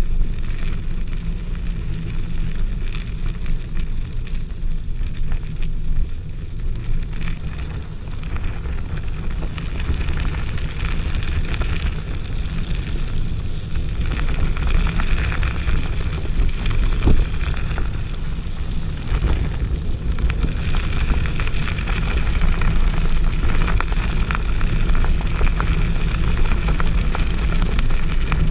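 Wind buffeting the microphone and the tyres of an electric scooter rumbling and crackling over a wet forest track as it is ridden.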